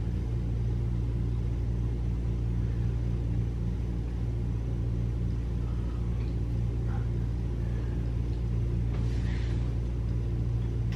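Steady low mechanical hum filling a small room, unchanging throughout, with a faint short hiss about nine seconds in.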